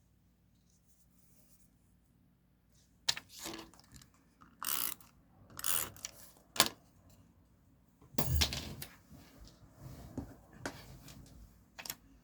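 Desk sounds of diary decorating: paper and sticker sheets rustling in short strokes, sharp clicks of small hard stationery items being picked up and set down, and one heavier thud about eight seconds in. It is quiet for the first few seconds.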